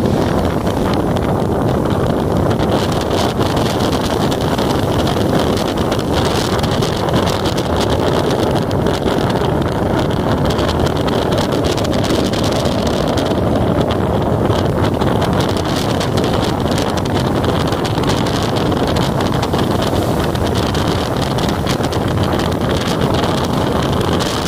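Motorcycle riding at a steady cruising speed: the engine running evenly under strong wind noise on the microphone.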